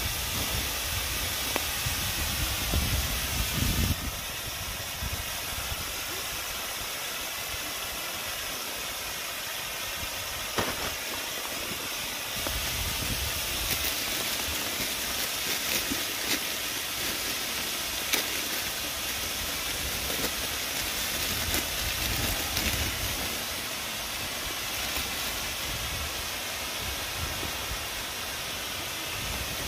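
Meat and greens sizzling in a pan over a wood fire: a steady hiss, with a few sharp crackles and pops from the burning wood. A low rumble runs under it for the first few seconds.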